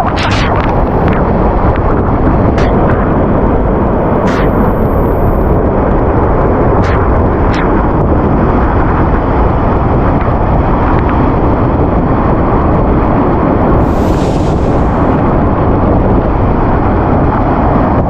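Waterfall's falling water rushing loudly and steadily up close, with a few brief clicks here and there.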